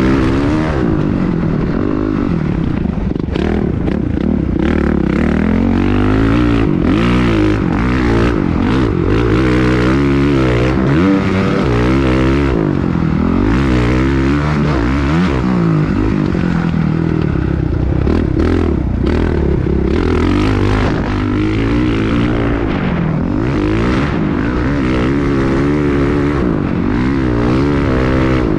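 Motocross bike engine revving up and falling back again and again as it is ridden through gear changes, with noisy rushes mixed in.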